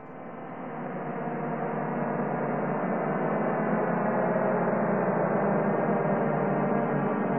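Intro sound effect: a dense, sustained drone of many held tones, swelling in over about two seconds and then holding steady.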